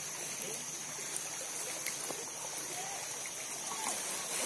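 Steady rushing outdoor background noise, with a few faint short chirps partway through.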